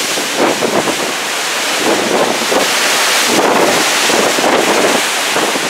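Strong wind buffeting the microphone over the steady rush of a rough sea churning white along a moving cruise ship's hull.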